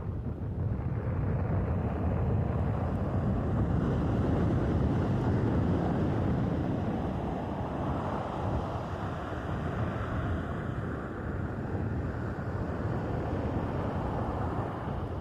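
Sea surf breaking and washing up the shore, a broad rushing roar that swells about a second in and again around eight seconds, then eases slightly.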